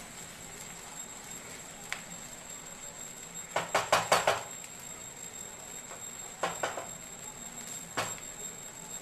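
Spatula scraping and knocking against a nonstick kadai as fried rice is stirred and tossed: a quick run of about six clicks some three and a half seconds in, three more around six and a half seconds, and a single knock near the end, over a steady hiss.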